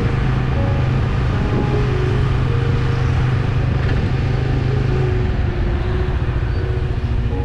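Honda Winner V1 motorcycle riding along, its engine running at a steady drone under a constant rush of road and wind noise. The engine note drops and turns more pulsing about five seconds in.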